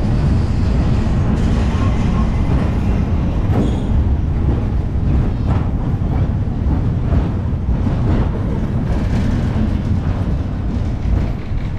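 1906 "Big Ben" double-decker electric tram running slowly over street track, heard from its roof: a steady low rumble, with a few faint clicks from the wheels over rail joints and points.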